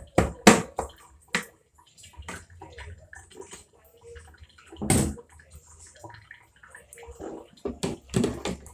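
Scattered clicks, knocks and clinks of a tin of sweetened condensed milk being handled and opened by hand, with one louder knock about five seconds in and a quick run of clicks near the end.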